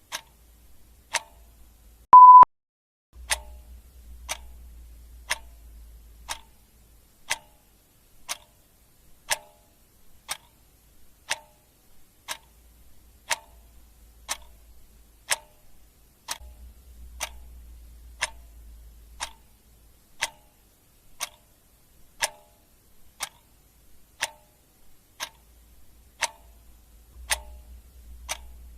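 Clock ticking steadily, about one tick a second. A single short beep sounds about two seconds in, louder than the ticks.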